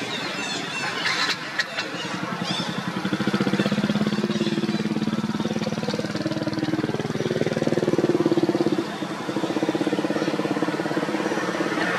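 An engine running steadily with a fine even pulse. It gets louder about three seconds in and eases off near nine seconds. A few short high chirps sound in the first couple of seconds.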